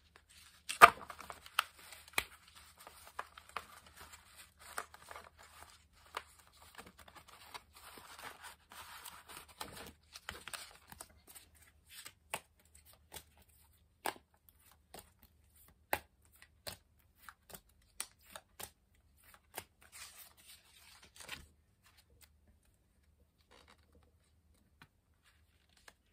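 Tarot cards being shuffled by hand: a run of sharp card snaps and clicks with papery rustling, thickest in the first half, then stopping a few seconds before the end.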